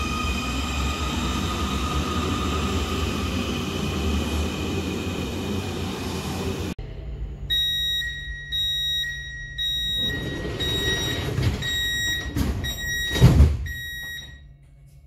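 Munich U-Bahn train noise with a steady electric whine. After a sudden cut, a door warning beeps in short repeated bursts inside the car over a low hum, and a loud thud near the end as the doors shut.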